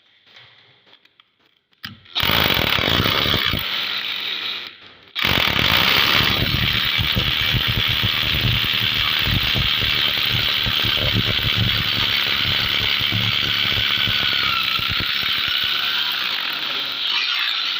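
A power tool running with a dense, rapid rattle: a short run starting about two seconds in, a brief stop near five seconds, then a long steady run that eases off near the end.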